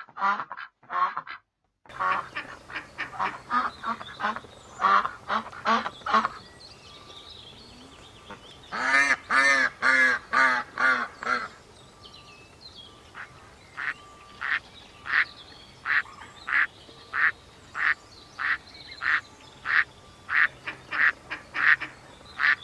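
Ducks quacking: a string of short quacks, a fast run of calls in the middle, then steady single quacks about two a second.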